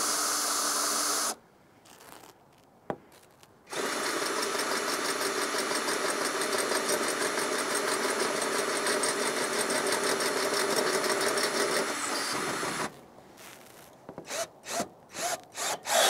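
Power drill spinning a long extension rod to drive a roof-rack bracket screw tight: a short run, a pause with a click, then a steady run of about nine seconds that stops, followed by a few light knocks.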